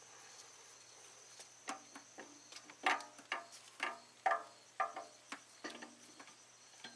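Light metallic clinks and knocks of a timing chain and exhaust camshaft being worked free and lifted out of the cylinder head, about a dozen short hits, several with a brief ring, starting about a second and a half in.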